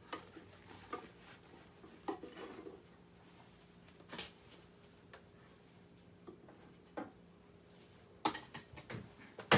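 Scattered clinks and light knocks of a dish and cutlery being handled, ending in one loud sharp knock near the end.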